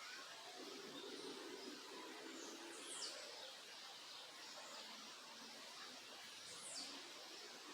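Faint backyard birdsong: two sharp, high calls sweeping downward, about three and a half seconds apart, among scattered soft chirps over a steady hiss.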